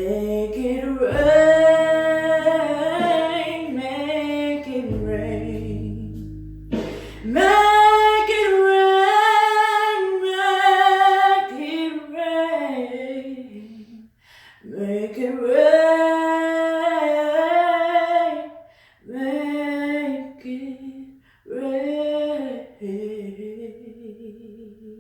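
A woman singing the closing phrases of a slow song with long held notes. A low backing accompaniment stops about eight seconds in, and the last phrases are sung unaccompanied with short pauses between them.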